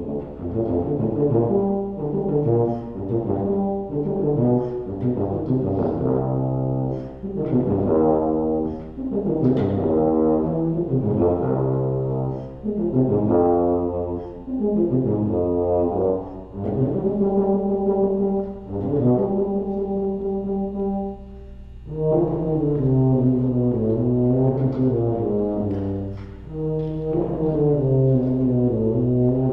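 Solo tuba playing unaccompanied, a moving melodic line in phrases of quick changing notes, with a brief break for breath about two-thirds of the way through.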